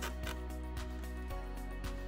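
Background music: sustained tones with light percussive hits.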